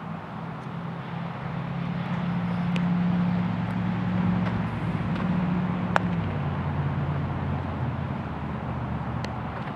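A motor vehicle's engine hum that swells and then fades over several seconds, as a vehicle passing by, with a single sharp knock about six seconds in.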